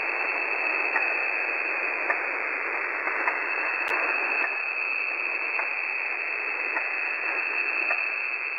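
Shortwave receiver in upper-sideband mode putting out the unidentified signal nicknamed "The Alarm": a steady, filtered rush of noise with faint ticks at a regular pace.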